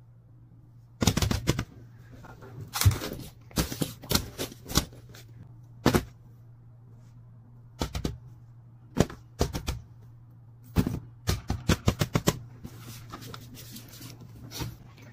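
Bursts of sharp clicks and taps from silicone fidget toys being handled, set down and swapped on a mat, several coming in quick runs. A low steady hum lies underneath.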